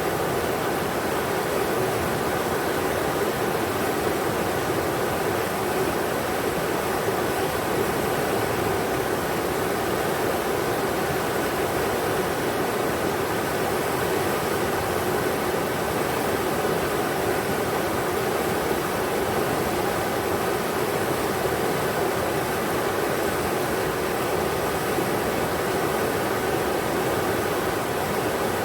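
River water rushing steadily over rocks, a constant even roar of flowing water.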